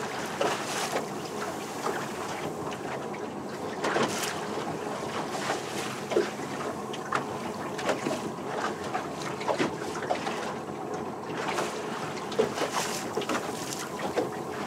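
Small motorboat under way on choppy sea: a steady rush of motor, water and wind noise on the microphone, with frequent short knocks.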